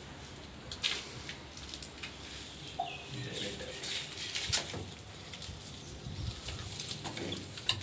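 A plastic shower diverter and CPVC pipe fittings being handled and fitted onto pipe ends in a wall chase: scattered light clicks and knocks a second or so apart.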